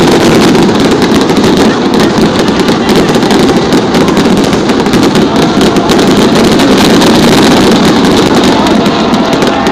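Large aerial fireworks display in a dense, unbroken barrage: many bangs and crackles packed close together, loud throughout.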